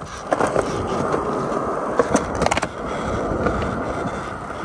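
Skateboard wheels rolling steadily over smooth concrete, with a few sharp clacks, most of them bunched together about two seconds in.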